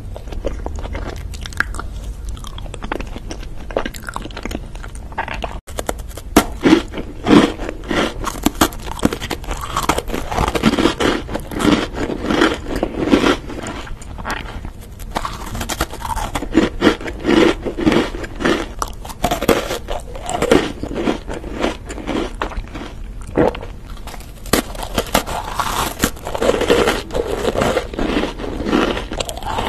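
Close-miked eating sounds: biting and chewing cream-filled chocolate roll cake and crisp biscuits, with many sharp crunches. The crunches are louder and denser from about six seconds in.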